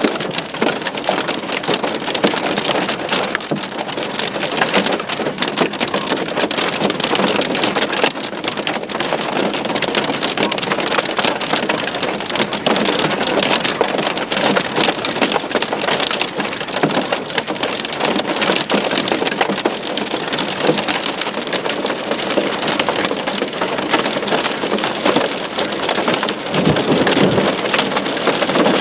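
Hailstones pelting down together with rain, a dense continuous clatter of countless small impacts.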